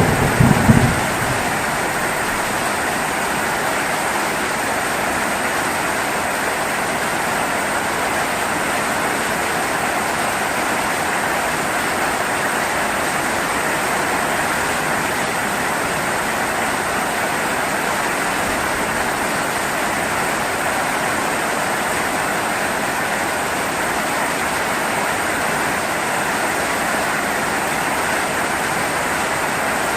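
Steady heavy rain falling, with a short, deep rumble of thunder right at the start.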